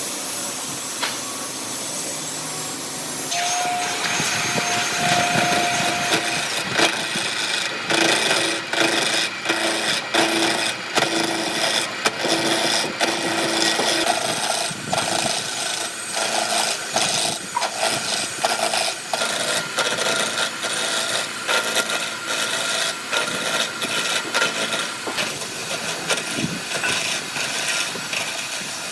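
Wood being cut and shaped with tools: rough, irregular scraping and rasping strokes with many short knocks, getting louder a few seconds in.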